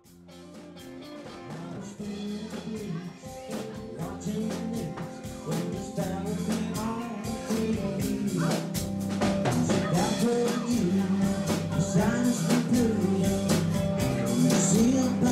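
Live country-rock cover band playing, fading in over the first couple of seconds: electric guitar over a steady drum beat, with a voice singing.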